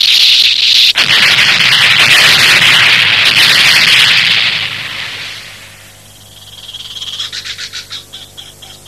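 Cartoon energy-beam blast effect: a loud, hissing rush that fades away over about five seconds. In the last few seconds, quieter rapid pulsing frog croaks take over.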